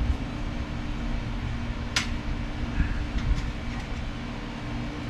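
Steady low mechanical hum, with one sharp click about two seconds in and a few faint ticks after it.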